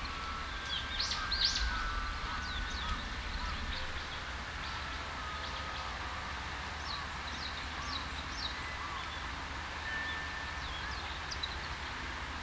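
Japanese white-eyes calling: short, thin, high chirps in quick irregular runs, loudest in the first couple of seconds and scattered after that. Fainter, lower whistles sit in the background, over a steady low rumble.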